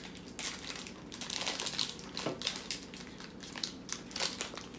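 Plastic candy wrappers crinkling in an irregular run of crackles as they are handled and pulled open.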